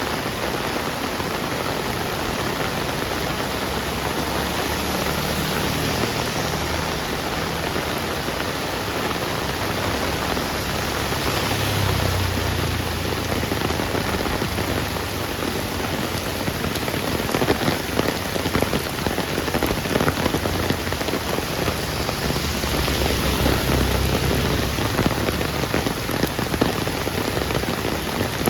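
Heavy rain falling on a street: a steady dense hiss of water. A low rumble swells and fades three times, and sharper, louder drop impacts stand out in the second half.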